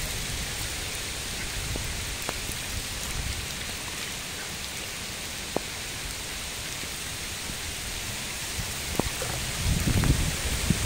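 Heavy rain falling on a lake's surface: an even hiss, with a few single drops ticking close by. A low rumble of wind on the microphone comes in near the end.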